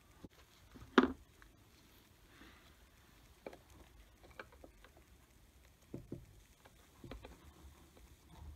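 Gloved hands handling a plastic coil-on-plug electrical connector on a Ford 5.0L V8: one sharp click about a second in, then faint scattered clicks and rustling.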